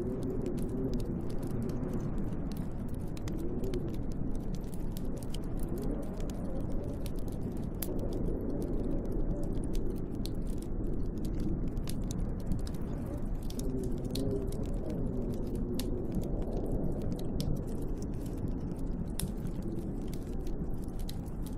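Wood fire crackling with irregular sharp pops and snaps, over a steady low wind with a howl that rises and falls in pitch.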